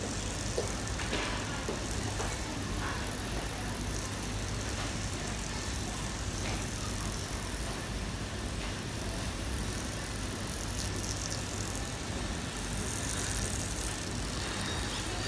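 HY-139 automatic plastic zipper machine running, forming zipper teeth as the tape feeds through: a steady mechanical whir with a low hum and a few faint ticks.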